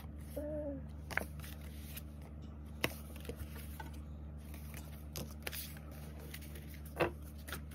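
Stack of photo cards and postcards handled and shuffled by hand: soft card-on-card sliding with several sharp taps as cards are set down, over a steady low hum.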